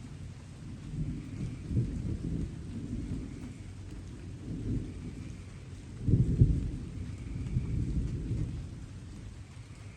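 Distant thunder rolling through light rain: a low rumble builds about a second in, swells to its loudest just past the middle, then fades away near the end, over a soft steady hiss of rain.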